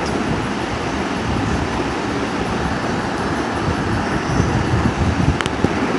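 Steady background noise, a constant hum and hiss, with a single sharp click about five and a half seconds in.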